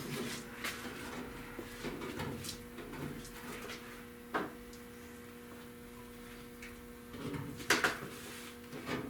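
Masking tape being peeled and pulled out from under a freshly glued sheet-metal rear deck panel: irregular scraping and rustling, with a sharp knock about four seconds in and a louder clatter near eight seconds.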